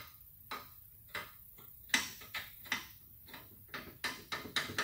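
About a dozen sharp metallic clicks, irregularly spaced and coming quicker near the end. They come from a sheet-metal brace on a 1955 Chevy pickup's radiator core support being worked back and forth by hand to snap off a last piece that could not be cut.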